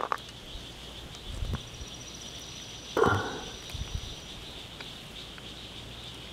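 Long-nosed pliers being worked at a hook in a small channel catfish's mouth as it is held on the grass: a few brief, soft handling rustles and scrapes, about one and a half and three seconds in, over a steady high-pitched background hum.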